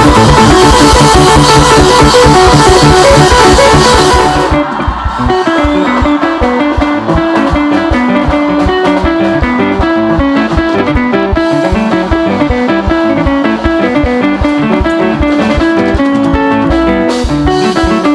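Loud live band music with guitar, fuller and brighter for the first four seconds or so, then thinning to a lighter passage of repeated plucked guitar notes with a steady beat.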